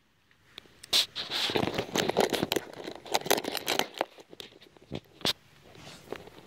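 Rustling and crackling with many sharp clicks for about three seconds, then a few scattered clicks: handling noise of a handheld camera being carried.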